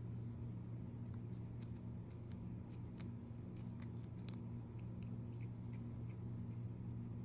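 A kitten chewing lettuce: small, irregular crisp crunches and clicks over a steady low hum.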